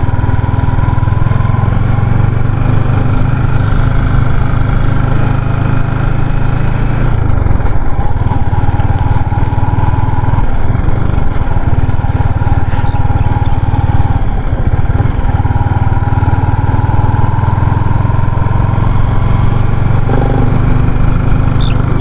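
Motorcycle engine running steadily while riding, its note shifting a few times along the way.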